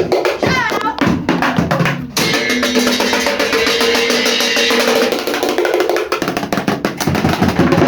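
Band playing São João music with no singing: a drum kit beat with percussion and guitar, and a chord held from about two seconds in until about six.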